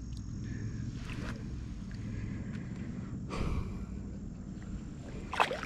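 Steady low wind rumble on the microphone at the water's edge, with a short splash-like swish of water about three and a half seconds in as the released bass moves off.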